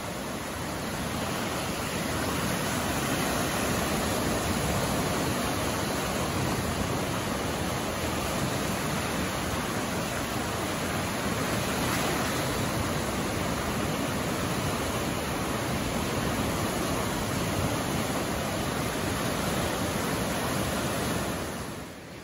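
A flood-swollen river rushing fast and turbulent in a flash flood: a loud, steady wash of water noise that drops off suddenly just before the end.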